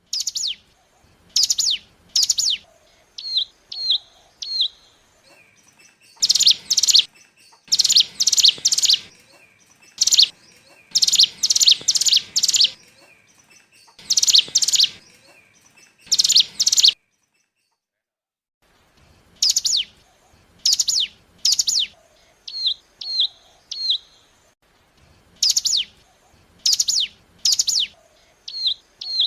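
Ciblek gunung, a prinia, calling in clusters of sharp, fast downward-sweeping notes mixed with short chips. There is a pause of about two seconds a little past the middle.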